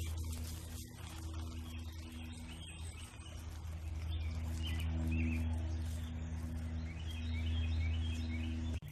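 Small birds chirping now and then over steady outdoor noise and a low hum. The sound cuts off abruptly near the end.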